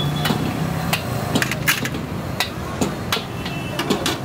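Metal tongs clinking and scraping against a steel tray and a wire grill basket of barbecued chicken, in sharp, irregular metallic clicks.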